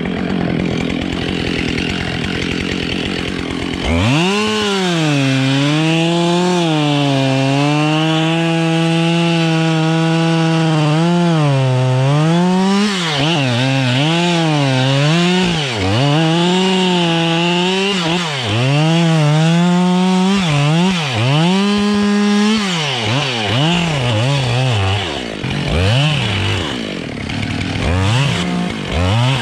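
Husqvarna 572 two-stroke chainsaw running low for the first few seconds, then opened to full throttle about four seconds in and cutting into a tree trunk, its pitch sagging and recovering as the chain bites. Later the revs rise and fall repeatedly, ending in a run of short throttle blips.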